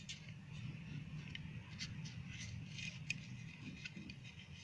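Faint crackling and rustling of a thin samosa pastry sheet, folded and pressed flat with the fingers on a plate, with scattered small ticks.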